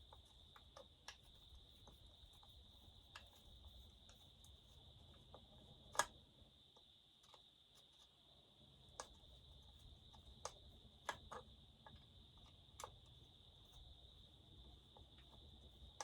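Faint, irregular clicks and taps of hand tools on the chainsaw as the intake boot's screws are tightened down, with one sharper click about six seconds in. A steady thin high-pitched tone runs underneath.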